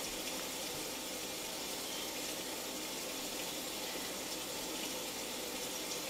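Steady rain falling: an even, unbroken hiss of rainfall.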